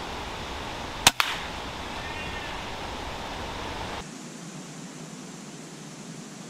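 Weihrauch HW100KT .22 pre-charged pneumatic air rifle firing a single shot about a second in: a sharp crack followed a split second later by a second crack. A steady hiss of outdoor noise lies underneath and drops at about four seconds.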